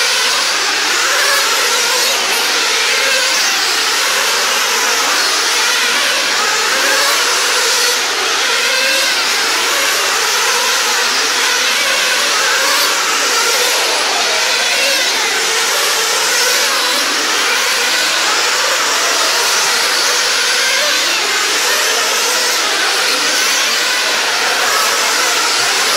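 Several nitro RC sprint cars' small two-stroke glow engines running flat out together as the pack laps the oval, a steady high-pitched whine that never lets up.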